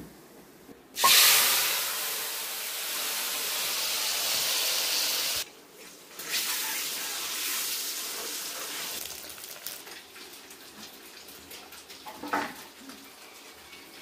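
Boiled eggs frying in hot oil in a wok: loud sizzling starts sharply about a second in, breaks off briefly around the middle, then comes back and fades away. A short clatter near the end.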